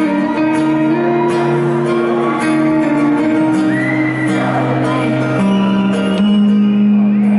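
Live band playing a song's instrumental intro, led by a strummed acoustic guitar over sustained chords that change every second or two.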